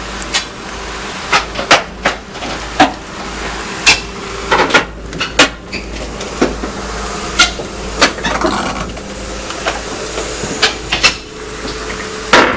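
Steel crawler tracks of a Doosan DX225LCA excavator clanking on a truck trailer's steel deck in sharp, irregular knocks, roughly one or two a second, over the steady hum of its running diesel engine.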